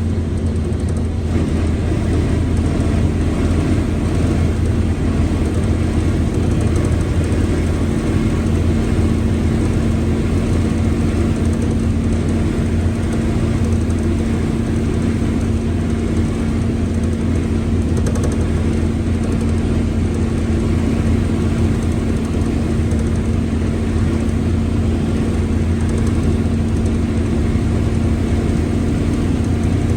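Mercedes-Benz OF-1721L bus's front-mounted diesel engine running steadily, with a low rumble and a constant hum over it from the growling gearbox.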